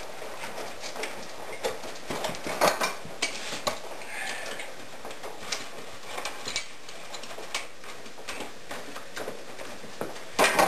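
Scattered light clinks and knocks from clamps and wood as a wooden canoe stem is bent around a bending form and clamped, with a cluster of louder knocks near the end.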